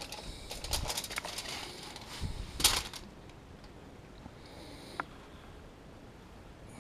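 Gloved hands rubbing and turning a rack of baby back ribs on crinkling aluminium foil: a few soft rustles in the first second or so and one louder crinkle a little under three seconds in.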